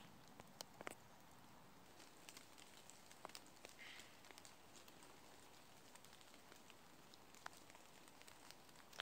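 Faint, irregular patter of water drops falling onto leaves in a wet forest, scattered soft ticks over a quiet steady hiss.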